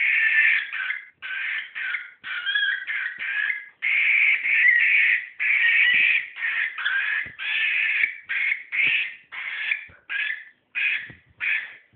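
Cockatiel giving a long run of short, rough, scratchy calls, about two a second, the calls getting shorter and more spaced out near the end. It is the bird's reaction to green socks, which it apparently does not like.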